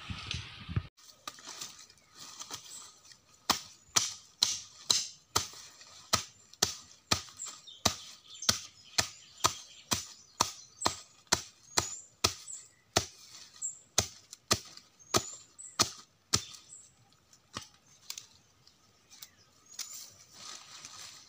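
Repeated sharp chopping strikes, about two a second, for some thirteen seconds and then a few fainter ones: kudya leaves and twigs being chopped into small pieces for green manure.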